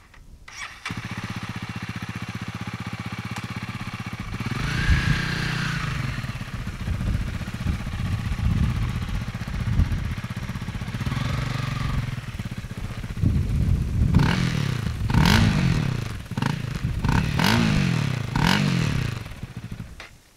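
Honda CRF300L's single-cylinder engine running steadily at first. From about four seconds in it revs up and down, rising and falling in pitch, with a quick run of rev swells in the second half.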